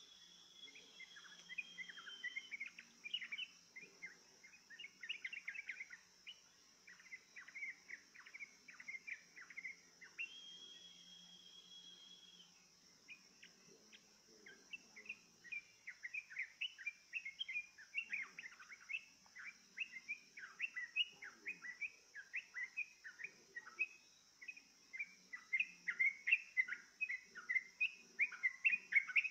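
Yellow-vented bulbul (trucukan) song: quick bubbly chirping notes. A long, steady high whistle comes at the start and again about ten seconds in. The chirping grows denser and louder in the second half.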